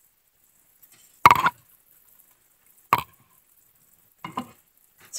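Saucepan and silicone spatula handled over a stovetop: two sharp knocks about a second and a half apart, then a few softer scrapes near the end as sauce is spooned out of the pan.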